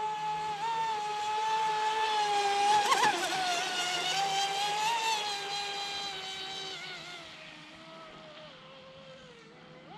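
Radio-controlled Pro Boat Impulse 32 deep-vee boat running across the water, its brushless electric motor and drive giving a high, steady whine. The whine is loudest about three seconds in, then fades and falls in pitch over the last few seconds.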